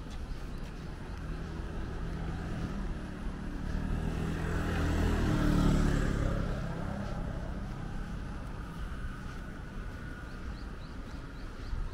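City street traffic: a steady rumble of cars, with one vehicle passing close by that swells to a peak about halfway through and then fades away.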